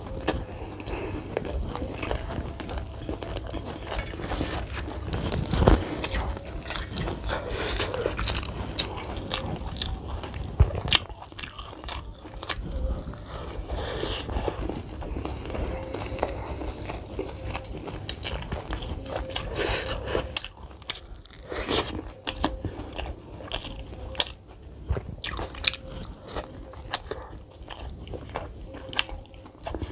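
A person biting and chewing fried snack food close to the microphone: crunching and many small irregular mouth clicks and crackles.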